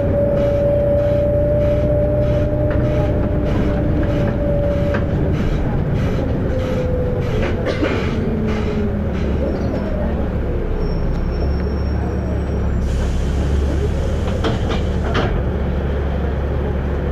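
Volvo B7RLE bus's six-cylinder diesel running on the move, with a whine that holds steady for the first few seconds, then glides up and down in pitch, and a regular ticking through the first half. About 13 s in there is a burst of air hiss lasting about two seconds.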